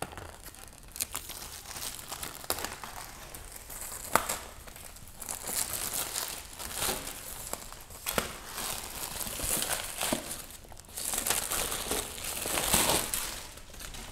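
Thin plastic shrink wrap being pulled off a laptop box by its pull tabs: irregular crinkling and tearing with scattered sharp clicks, swelling louder a few times, loudest near the end.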